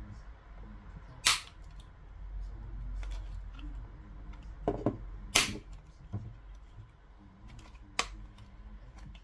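Sharp clicks and knocks of the opened speaker's small parts being handled, four in all: a loud one about a second in, two close together about halfway, and a fainter one near the end.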